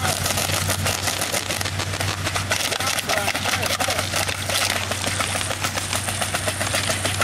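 Rapid, irregular popping of the BB cannons firing from remote-control model warships in a close battle, over a steady low hum.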